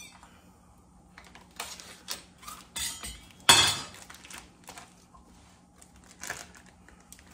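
A plastic bacon package being pulled open by hand, with a short rip about three and a half seconds in as the loudest sound. Around it, light clicks and knocks of a knife and the package on a stone countertop.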